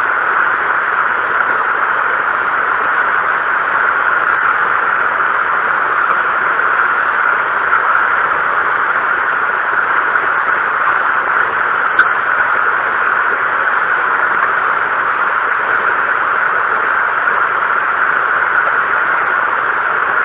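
Heavy rain falling as a steady hiss, with one sharp click about twelve seconds in.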